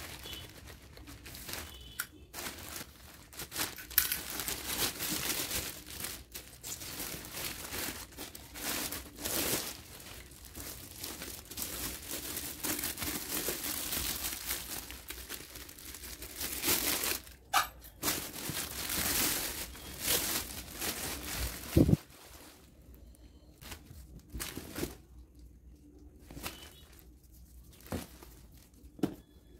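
Plastic packaging crinkling and tearing as a handbag is pulled out of its poly mailer bag and clear plastic wrap. Most of the way it is busy, continuous rustling; in the last part it turns quieter, with a few sharp taps as the bag is handled.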